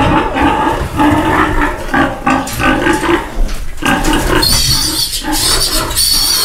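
Pigs grunting loudly and repeatedly, the sow upset at her piglets being handled. From about two-thirds of the way in, a piglet squeals high and shrill as it is caught and lifted by a hind leg.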